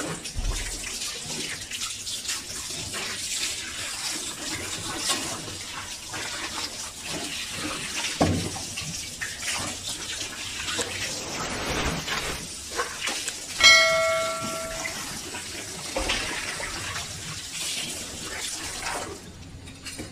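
Water running steadily from a hose onto a wooden cutting board and fish as they are rinsed, with a few knocks as the fish and knife are handled. About two-thirds of the way through, a short ringing tone with several pitches sounds for just over a second, the loudest sound.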